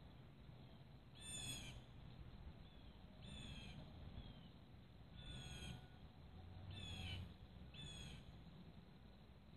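A bird calling: five short, falling calls, each under a second, spaced one to two seconds apart.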